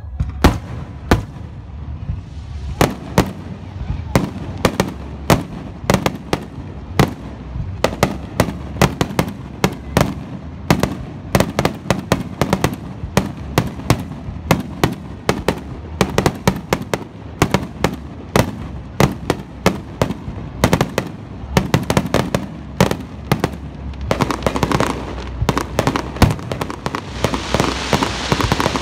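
Fireworks display: aerial shells bursting in quick succession, sharp bangs several a second. In the last few seconds a dense crackling hiss builds under the bangs.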